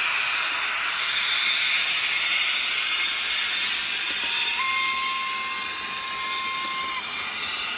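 Märklin HO model train running on metal track: a steady rushing hiss of wheels and motor. About halfway through, a steady high tone comes in, steps up slightly in pitch, holds for about two and a half seconds, then cuts off.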